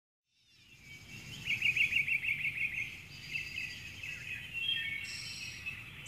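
Birdsong fading in: several birds chirping, with a fast trill of high repeated notes about a second and a half in, over a low steady background rumble.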